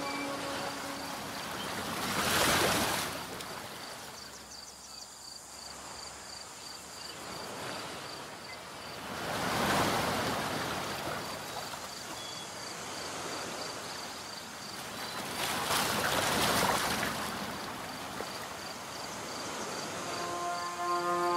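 Waves washing in, three slow surges of surf about seven seconds apart, while the background music drops out; the music comes back in near the end.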